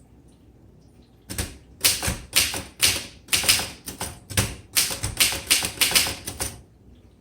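Keys typed on a 1926 Royal Model 10 manual typewriter: a quick, uneven run of about fifteen sharp typebar strikes, starting about a second in and stopping near the end.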